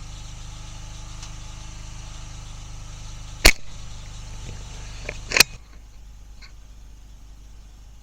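Air rifle firing: two sharp cracks about two seconds apart, the first the louder, over a steady low hum that stops just after the second.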